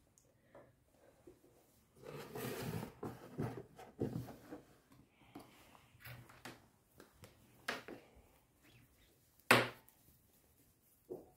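Cardboard packaging being handled: cardboard sliding and rubbing, several light knocks, and one sharp thump near the end as the carton is set down on the desk.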